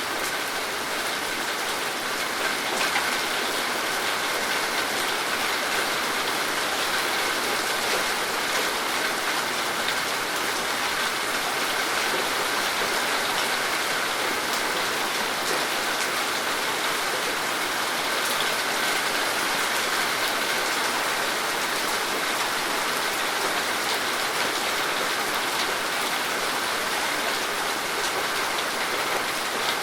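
Steady rain falling, a dense even patter of drops on surfaces.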